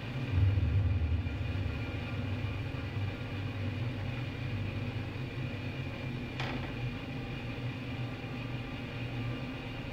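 Steady hum of running desktop computers' cooling fans, with a low rumble that swells briefly about half a second in and a single sharp click about six and a half seconds in.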